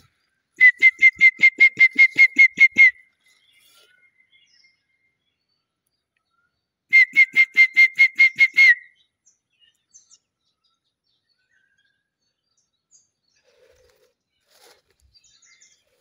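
A person whistling a rapid run of short, evenly spaced notes at one high pitch, about five a second, close to the microphone. Two bouts of about two seconds each, the second starting about seven seconds in.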